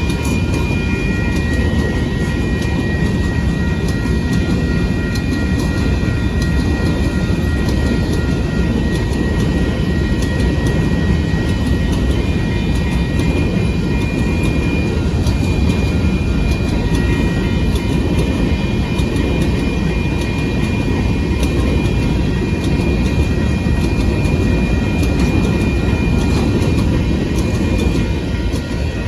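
Union Pacific local freight train rolling past at close range: a loud, steady rumble of wheels and cars, with faint steady high-pitched tones over it.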